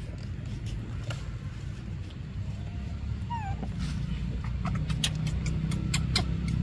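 A few short, high, falling squeaks about three seconds in, the whimpers of an infant macaque, over a steady low rumble, with several sharp clicks between five and six seconds in.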